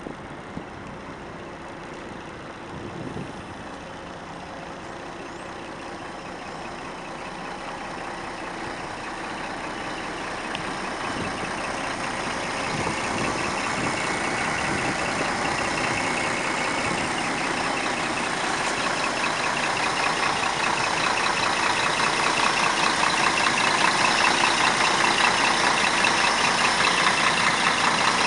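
Scania coach's rear-mounted diesel engine idling, getting steadily louder, with a fast diesel clatter coming through in the second half.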